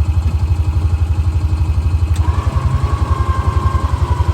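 Honda Pioneer side-by-side's engine idling with a steady low pulse; about two seconds in a click, then a Warn electric winch motor starts whining steadily as it pulls a stuck side-by-side backwards through a snatch block.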